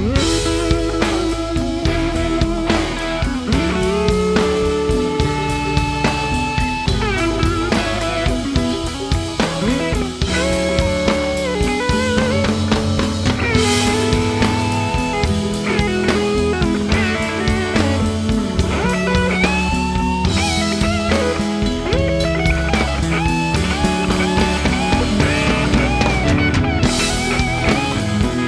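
Rock music with electric guitar, bass and a full drum kit playing steadily.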